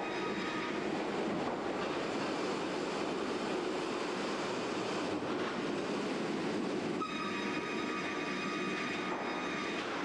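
Circular sawmill machinery running: a steady, dense mechanical din, with a thin high whine that cuts in sharply about seven seconds in.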